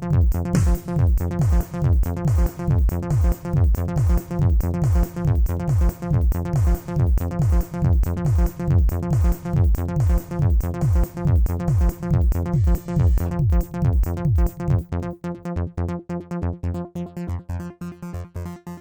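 Electronic disco-style music: a synthesizer over a fast, steady drum-machine kick. About fifteen seconds in, the heavy kick drops out and lighter, shorter pulses carry the beat.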